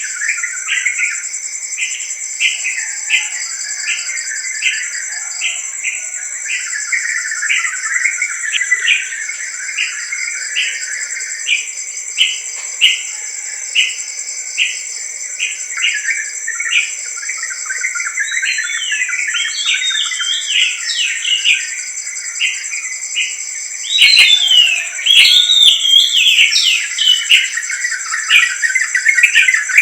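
Crickets trilling steadily and high with morning birdsong: one bird repeats a short chirp about twice a second, while another sings a more varied warbling song in the middle and more loudly from near the end.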